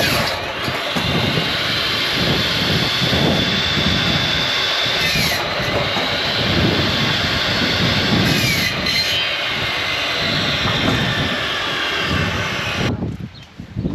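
Wood-Mizer portable band sawmill running through a cut, a loud steady machine noise with faint high whines gliding in pitch. It drops away suddenly about 13 seconds in.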